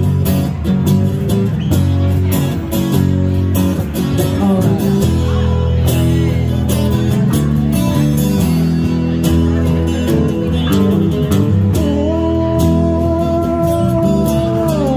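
Live band music: a strummed acoustic guitar with a steady rhythm over an electric bass line. About twelve seconds in, a singing voice holds one long note until near the end.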